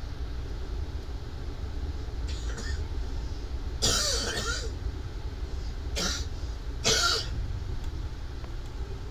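A man coughing: a loud, partly voiced cough about four seconds in, then two shorter coughs around six and seven seconds, over a steady low rumble.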